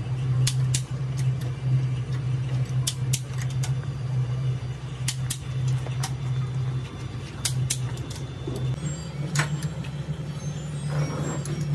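A steady low machine drone runs throughout and shifts slightly higher about nine seconds in. Over it come scattered sharp metallic clinks of a hand wrench working bolts on the front of a diesel engine block.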